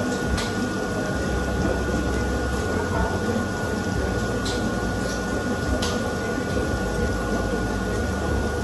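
Restaurant room noise: a steady hiss and low rumble under a constant thin high whine, with a few light clicks.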